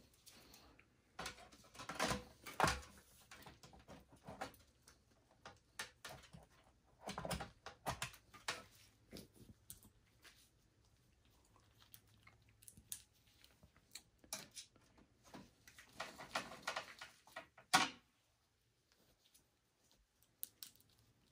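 Faint, scattered clicks, taps and rustling from a graphics card being handled and seated into a PC case's PCIe slot by gloved hands, with one sharper click near the end.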